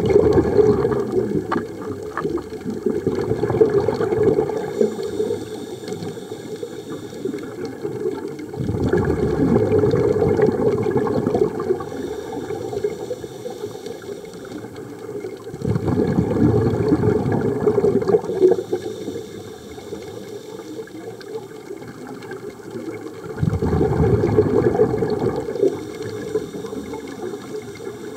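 Scuba diver breathing through a regulator underwater: four long rumbling bursts of exhaled bubbles, roughly every seven to eight seconds, with a faint high hiss of inhalation through the regulator between them.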